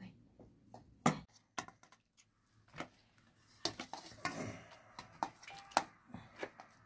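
Scattered clinks and knocks of dishes and kitchen utensils being handled, with sharper knocks about a second in and near six seconds.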